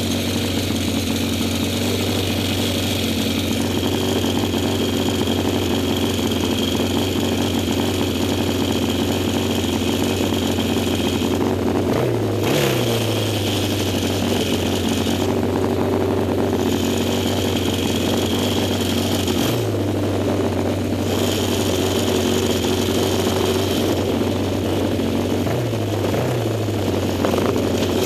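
Yamaha XS650 parallel-twin engine of a vintage racing sidecar idling steadily, with a few brief throttle blips that fall back to idle: about twelve seconds in, around twenty seconds and twice near the end.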